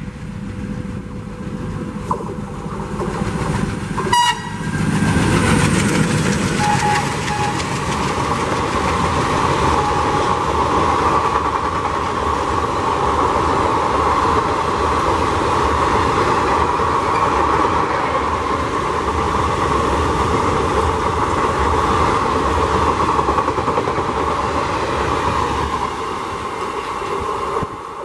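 Passenger train headed by two diesel locomotives passing at speed. A short horn blast sounds about four seconds in, then the locomotives' engines come by loudly. After that comes a long, steady rush and clatter of coaches rolling past, fading near the end.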